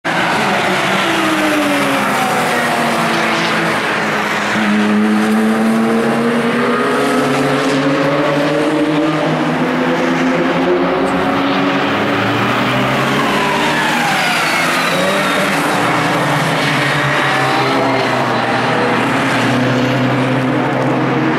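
Several race car engines running on the circuit at once, their pitch rising and falling as the cars accelerate and pass by.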